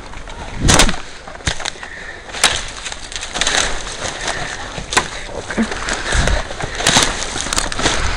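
Footsteps crunching through dry leaves and brush, with rustling close to the microphone and a few sharper knocks at uneven intervals.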